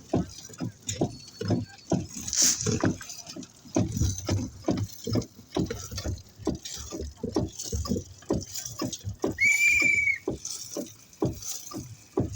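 Rapid, irregular knocks and thuds, about three to four a second, with a short high steady beep about nine and a half seconds in.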